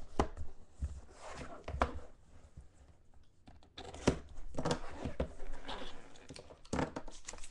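Hands handling a hinged sports-card box and its packaging on a tabletop: rustling with a few sharp knocks and clicks, one about four seconds in as the box is worked open and its lid lifted.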